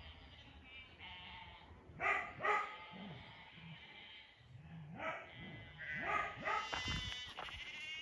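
A flock of sheep bleating: a couple of calls about two seconds in, then several overlapping calls through the second half.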